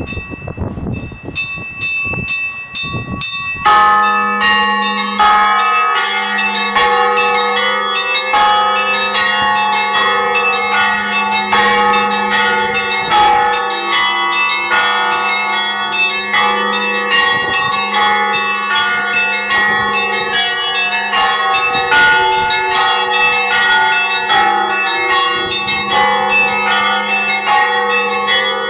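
Church bells ringing in the Russian style (kolokolny zvon). A few bells ring softly at first. About four seconds in, the full peal begins: a deep bell's steady hum under quick, overlapping strikes of many smaller bells.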